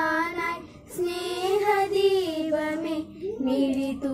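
Schoolgirls singing a prayer song together, with long held notes and a brief pause for breath about a second in.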